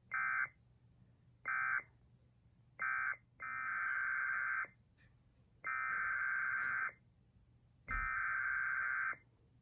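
Emergency Alert System SAME digital data bursts. First come three short end-of-message bursts about a second apart, then three longer header bursts that begin the next warning.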